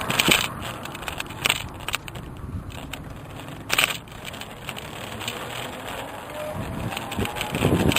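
Road and wind noise while riding an electric bicycle, broken by a few sharp knocks or clatters as it goes over bumps, with a faint rising whine and stronger wind buffeting near the end.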